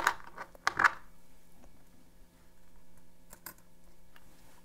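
Light clicks and clinks of small steel lock picks and spacers being handled and slid onto the screw posts of a pick-tool handle. Two louder clicks come near the start, and a couple more about three and a half seconds in.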